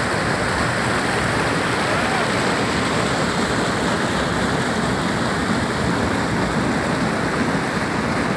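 Small waterfall in a rocky stream, water rushing and splashing steadily over the rocks.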